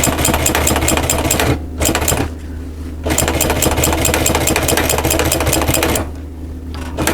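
Sewing machine running, stitching in quick, even strokes along a seam over a steady low motor hum. The stitching pauses briefly about one and a half seconds in, stops for nearly a second around two seconds in, and stops again near the end.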